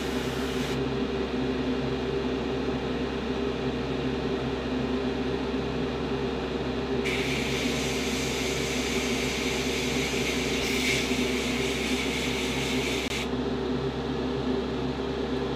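Steady motor hum throughout. About seven seconds in an airbrush starts blowing a hiss of air for about six seconds, then stops sharply: air blown over the freshly sprayed paint to dry it.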